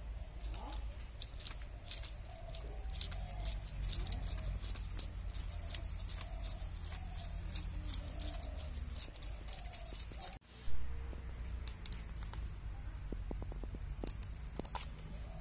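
Knife scraping the scales off a whole fish, a long run of quick rasping strokes. A brief knock about two thirds of the way through is the loudest moment.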